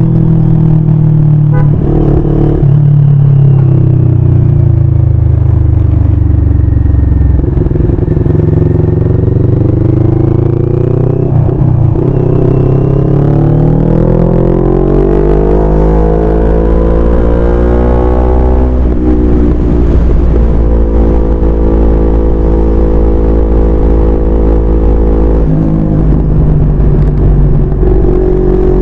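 CFMoto 400NK motorcycle's 400 cc parallel-twin engine under way in traffic. The engine note climbs steadily for about ten seconds in the middle as the bike accelerates, drops sharply at an upshift about two-thirds of the way in, then runs steady at cruising revs.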